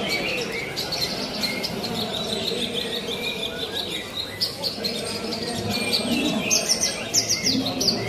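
Several caged Javan bush larks (branjangan) singing in competition at once, a dense overlapping stream of quick chirps and trills that grows busier with rapid falling notes near the end, over a low murmur of crowd voices.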